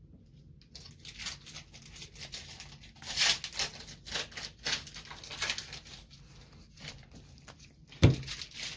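Magic: The Gathering trading cards and booster-pack wrappers being handled: a run of short rustles and flicks as packs are opened and cards sorted, with a sharper knock about eight seconds in.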